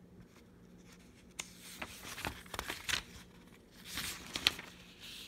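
Pages of a paper instruction booklet being turned by hand: a run of paper rustles and crinkles with a few crisp snaps, the sharpest near the end.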